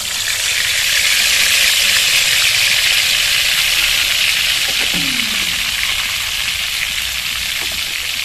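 Sliced potatoes frying in hot oil in a kadai, a loud, steady sizzle as more slices go into the pan. It is loudest about a second in and eases slightly after that.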